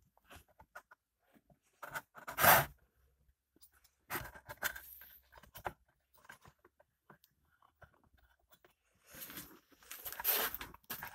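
Handling noises from a dismantled Makita MM4 four-stroke blower engine: scattered clicks and scrapes of metal and plastic parts being turned over and fitted, with a short loud scrape about two and a half seconds in and a longer stretch of scraping and rattling near the end.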